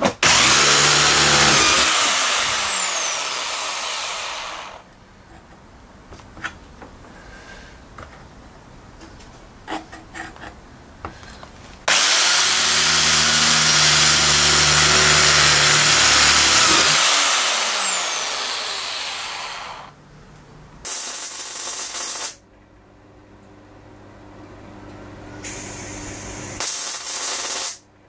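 Corded electric drill drilling holes through a steel plate, in two long runs, each winding down in pitch at the end. Near the end come two short, loud bursts of a different sound, each about a second and a half long.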